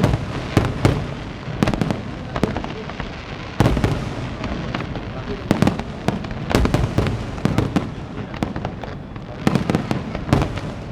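Fireworks display: a steady run of aerial shell bursts, sharp bangs coming in clusters, often several a second, over a constant crackle.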